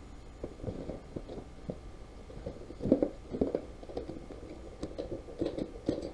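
Irregular light taps, clicks and rustles of small hard parts being handled, loudest about three seconds in.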